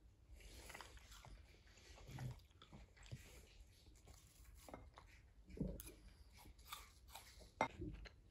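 Dogs chewing pieces of food taken from the hand, with faint, irregular chewing and crunching. A sharp click comes near the end.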